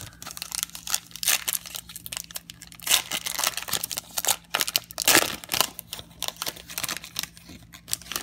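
Foil wrapper of a Donruss Elite football card pack crinkling and tearing as it is ripped open by hand: an irregular run of crackles, with louder rips about one, three and five seconds in.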